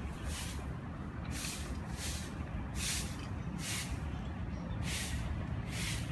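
Distant diesel locomotive approaching, a low rumble and hum that grows stronger near the end. Over it, short swishing hisses repeat about every 0.8 seconds.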